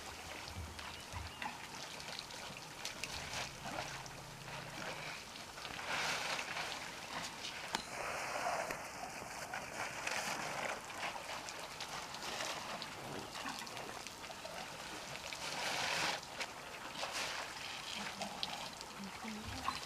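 A herd of African bush elephants drinking at a waterhole: water splashing and dribbling in irregular bursts as trunks draw up water and spill it back, with a few louder splashes along the way.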